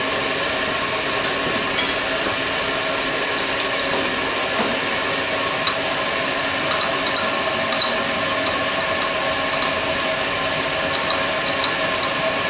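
Milling machine running with a steady hum, over which come scattered small metallic clicks and clinks.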